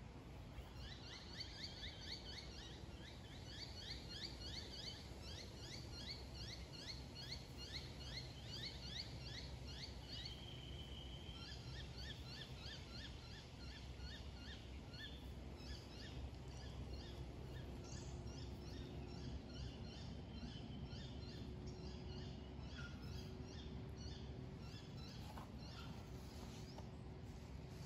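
Birds calling: long runs of short, high chirps repeated about three times a second, in several stretches, over a faint low background rumble.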